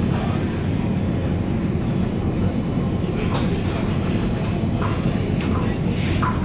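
Singapore MRT North East Line C751A train heard from inside the car while running: a steady rumble of wheels on rail, with a few short sharp rattles in the second half.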